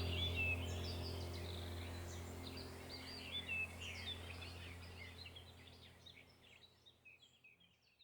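Small birds chirping rapidly over a low steady hum, the whole sound slowly fading out.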